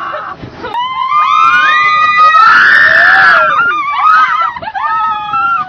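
Riders screaming in a Ferris wheel gondola as it moves: several overlapping high-pitched shrieks rise from about a second in and peak loudest around two to three seconds in, followed by shorter, wavering cries near the end.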